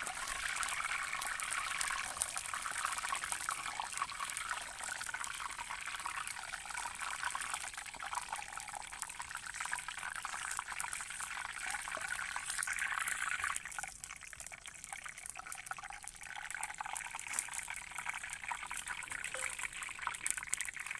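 Curry leaves sizzling and crackling in hot palm oil in a small pan, a steady hiss that eases briefly about two thirds of the way through.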